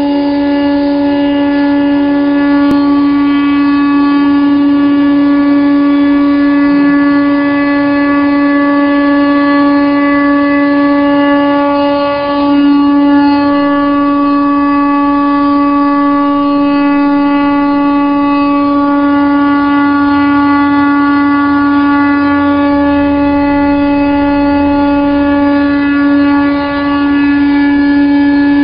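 CNC stone router's spindle running at a steady high pitch while its bit cuts a sink opening through a quartz countertop slab. The tone dips briefly twice, near the middle and near the end.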